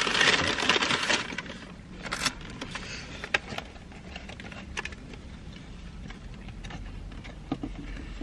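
Rustling of fast-food packaging for about the first second, then scattered small clicks and crinkles of a burger and its paper box being handled during eating. A low steady hum sits under it in the car cabin.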